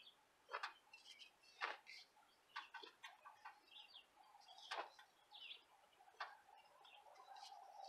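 Small hand trowel scraping and scooping through dry potting mix in a fabric bag: short irregular scrapes, about half a dozen, with faint bird chirps.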